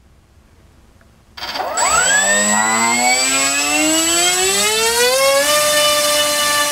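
NTM Prop Drive 2836 2200kv brushless outboard motor spinning an APC 7x5 electric prop on 3S in a thrust test. About a second and a half in it starts and winds up in a steadily rising whine over about four seconds, with a rush of air, then holds at full throttle with a steady high whine.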